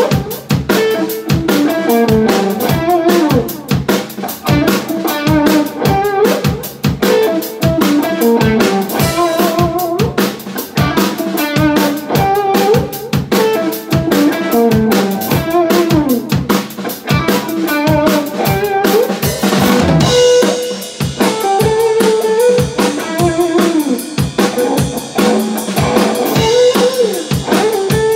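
Live instrumental blues on electric guitar and drum kit: the guitar plays a lead line with bent notes over a busy beat on kick, snare and cymbals. About twenty seconds in, the cymbals open into a wash and the guitar settles on a repeated held note.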